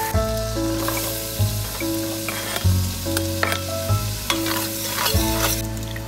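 Food sizzling in a frying pan, a steady hiss that eases near the end, under soft background music.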